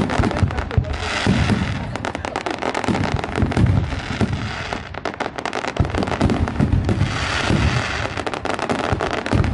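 Fireworks display in full barrage: a dense, continuous run of rapid crackling pops from bursting stars, over repeated deep booms of shells bursting.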